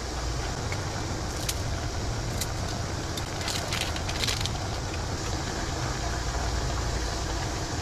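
Steady low hum and hiss of a pot cooking on a portable gas stove. Light clicks of chopsticks against the pot come a couple of times, and a short crackle of a seasoning packet being squeezed falls around the middle.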